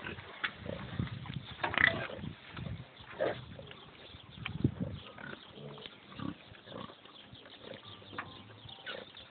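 Pigs grunting in short, irregular calls, the loudest about two seconds in and again about halfway through.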